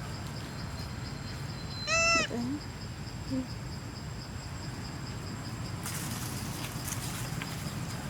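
A young monkey gives one short, high, arching cry about two seconds in, then two brief lower calls.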